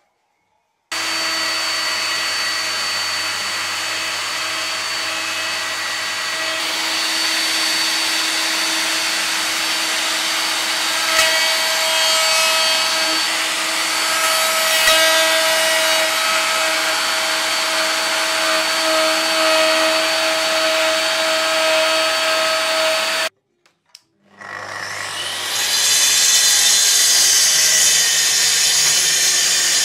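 An electric router starts about a second in and runs at a steady high whine while it cuts ash wood. It stops abruptly after about 23 seconds. Then a Festool TS 55 plunge track saw spins up and cuts along its guide rail.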